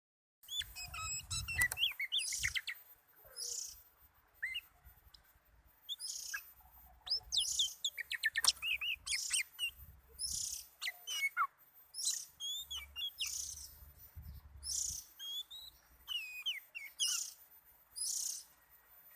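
Oriental magpie-robin (kacer) singing a varied song: short phrases of quick sliding whistles mixed with harsher, hissy high notes, coming every second or so.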